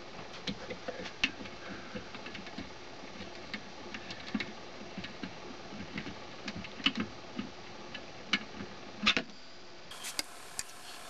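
Scattered light clicks and ticks, irregular and a few a second, from the repaired Edison A250 phonograph spring motor and its winding crank being worked. The sharpest pair comes about nine seconds in.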